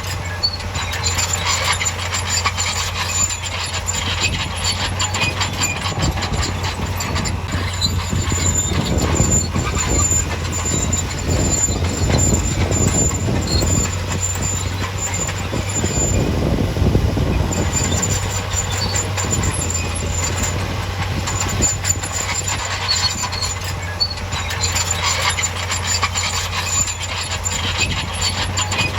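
Crawler bulldozer at work: a steady low diesel drone with continual metallic clanking and a high, intermittent squeal from its steel tracks. The clanking and rumble grow heavier for about ten seconds in the middle.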